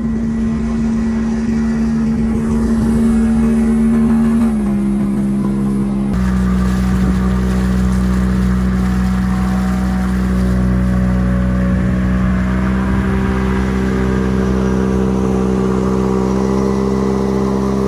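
Boat outboard motor running steadily at cruising speed, with a slight drop in pitch about four and a half seconds in.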